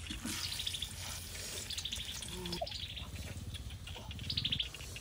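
Sliced bamboo shoots sizzling in hot oil in a wok. A bird's high, falling trill repeats four times over it, loudest near the end.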